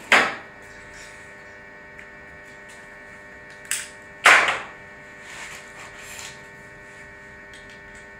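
Stick (arc) welder's transformer humming steadily while switched on but not welding, with sharp clattering knocks at the very start and twice about four seconds in, the second one the loudest.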